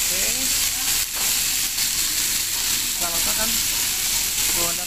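Beef, rice and corn sizzling steadily on a hot iron sizzle plate while a spoon stirs them, with a short scrape of the spoon against the plate about a second in.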